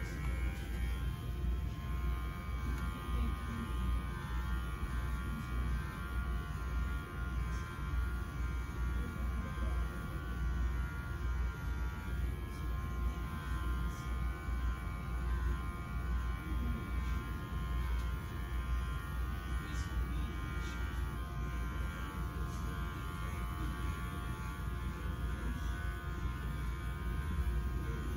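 Electric dog grooming clippers running steadily, a constant motor hum.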